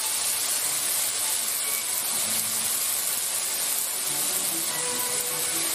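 Penne pasta frying in oil in a pan: a steady sizzling hiss. Soft background music plays along with it.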